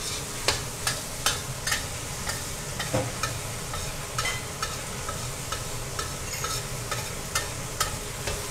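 Metal spatula stirring spice paste in hot oil in a stainless-steel wok: a steady sizzle with irregular sharp clinks of the spatula against the wok, about one or two a second.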